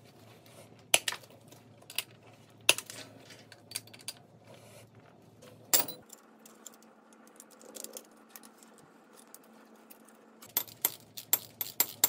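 Scattered metal clinks and taps as a replacement furnace blower motor, its mounting hardware and hand tools are handled, with a quick run of clinks near the end.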